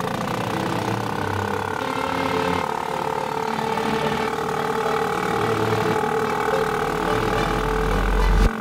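Small boat outboard motor running steadily. A low swell builds and cuts off abruptly near the end.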